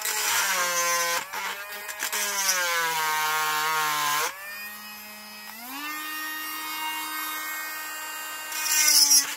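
Cordless rotary tool with a cut-off wheel grinding through a metal wire, its motor whine sagging in pitch under load. About four seconds in the load eases and the whine settles at a steady higher pitch, with a short burst of harsher grinding near the end.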